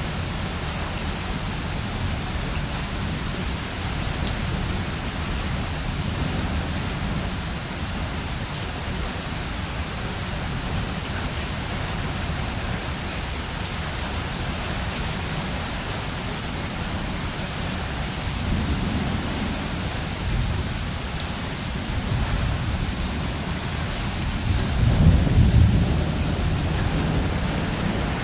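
Steady heavy rain with rolls of thunder: a low rumble about two-thirds of the way through and a louder, longer roll near the end.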